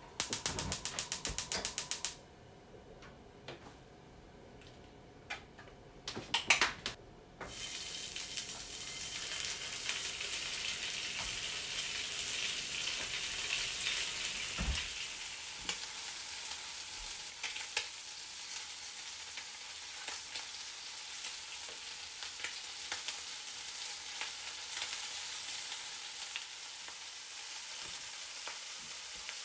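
Rapid, evenly spaced clicking for about two seconds at the start, like a gas hob's igniter. After a quiet spell, rolled bacon slices start frying in a non-stick pan about seven seconds in and sizzle steadily from then on.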